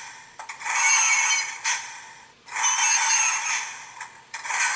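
Electronic sound module in a toy AT-ACT walker's head playing its built-in effect of the walker stomping and firing, through a tiny speaker that gives it a tinny sound with no bass. The effect comes in three swells about two seconds apart, each starting sharply and fading away.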